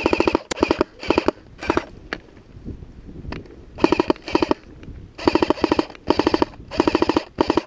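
Electric airsoft rifle (AEG) firing on full auto in about nine short bursts. Each burst is a rapid rattle of roughly fifteen shots a second, with brief pauses between bursts.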